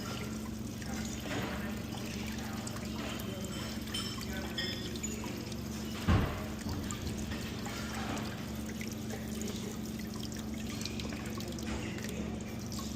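Water running and pouring steadily from an opened faucet as the plumbing line drains, over a steady low hum. One sharp thump about six seconds in.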